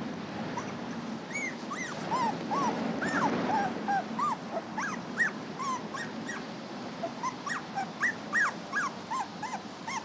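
Puppies whimpering: a run of short, high whines that each rise and fall, two or three a second.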